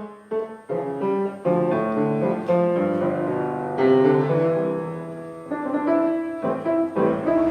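Instrumental piano music: a melody of single notes over chords, each note struck and left to ring.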